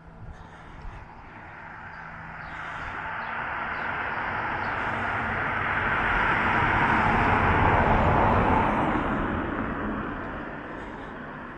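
A road vehicle driving past, its tyre and engine noise building to its loudest about two-thirds of the way through, then fading away.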